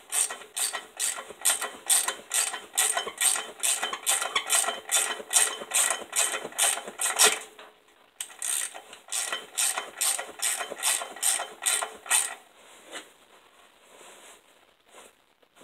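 Hand socket ratchet clicking in quick, even bursts, about four a second, as the accessory bracket bolts are run down and snugged on the engine. It pauses briefly about seven seconds in, clicks again, and stops about twelve seconds in.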